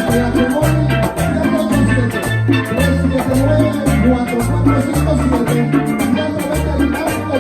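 Latin-style band music with a bouncing bass line, drums and percussion, and bright pitched melody, playing an instrumental stretch.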